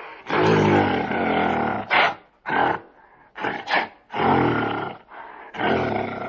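Gorilla calling: a series of deep roars and grunts, a long roar about a third of a second in, then short grunts and two more roars near the end.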